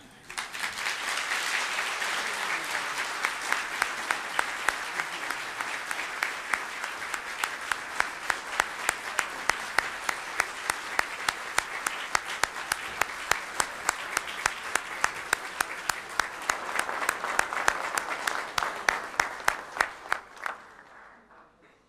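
An audience applauding: dense, steady clapping. From about a third of the way in, single loud claps stand out at an even beat of two to three a second. The applause dies away near the end.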